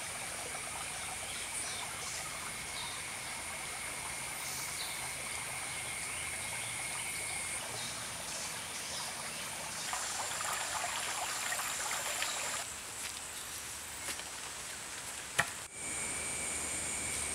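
Shallow creek trickling steadily over stones, over two steady high-pitched tones. The water noise grows fuller for a couple of seconds about ten seconds in, as a hand stirs and splashes in the shallows, and a single sharp knock comes near the end.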